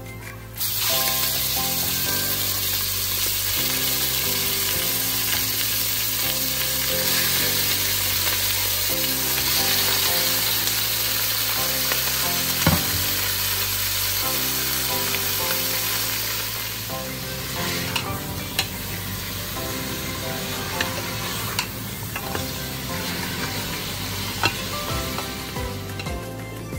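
Lamb pieces sizzling in hot oil in a stainless steel pressure cooker pot, the sizzle starting suddenly as the meat hits the oil and easing a little after about sixteen seconds. A few sharp clicks sound over it.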